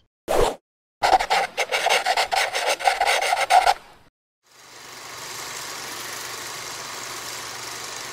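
Logo-sting sound effect: a quick swish, then about three seconds of rapid scratchy, rasping strokes that stop about four seconds in. A steady hiss of room tone with a faint hum follows.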